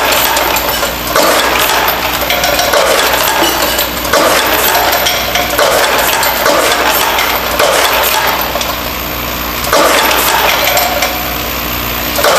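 Brass fittings clinking and clattering as they stream through a Delta Counter LCM22 piece-counting machine and drop into a cardboard box, over a steady machine hum. The clatter eases off briefly several times, longest about two-thirds of the way through.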